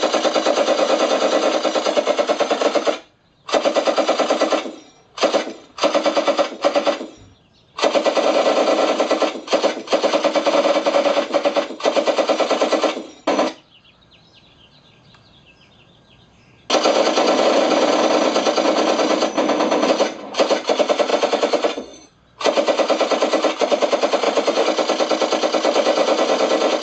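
Machine-gun sound effect played through the onboard loudspeaker of a ParkZone T-28 Trojan RC plane, driven by a custom sound circuit and a 20 W amplifier. It plays long strings of rapid fire with short breaks and a longer pause of about three seconds midway, thin with little bass.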